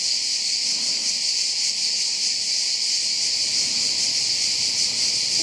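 Cicadas singing in a dense, steady, high-pitched chorus.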